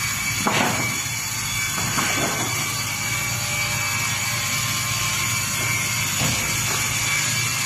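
Multi-blade log saw running, a steady machine hum with a held high whine, broken by a few short knocks.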